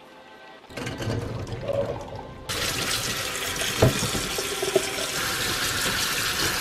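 Kitchen tap water running onto chickpeas in a metal mesh strainer over a steel sink, as a hand rubs them to rinse them. The full, steady splashing cuts in abruptly about two and a half seconds in, after a second or two of lower noise, and a couple of light knocks come through it.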